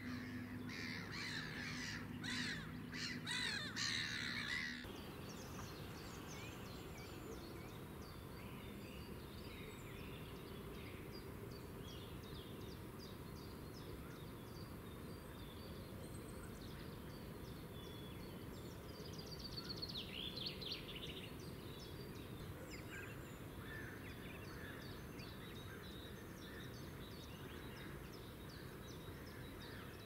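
Wild birds calling by a river: a quick series of loud, repeated calls in the first five seconds, then faint scattered chirping with a short louder burst of song about twenty seconds in.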